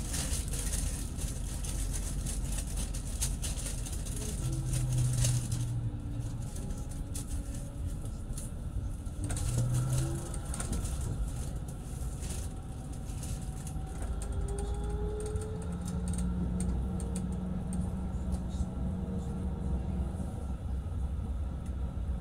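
A tram running on its rails: a steady low rumble with scattered clicks from the wheels and track. A faint electric motor whine rises in pitch a little after halfway in, as the tram picks up speed.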